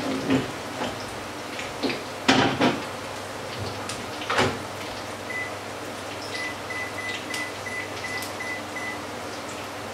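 Fritters sizzling in a frying pan. A few sharp knocks and clatters come in the first half, and a run of short, evenly spaced high beeps follows from about five to nine seconds in.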